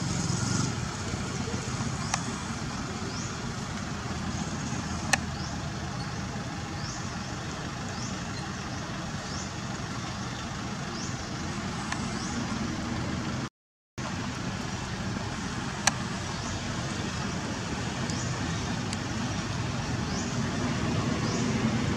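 Outdoor background: a steady low rumble and hiss, like distant motor traffic, with short rising high-pitched chirps repeating roughly once a second and a few sharp clicks. The sound cuts out for a moment about halfway through.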